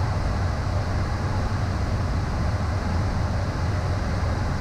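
Steady cockpit noise of a Beechcraft Premier I jet in a fast descent: an even rush of airflow over a constant low rumble from the airframe and turbofan engines.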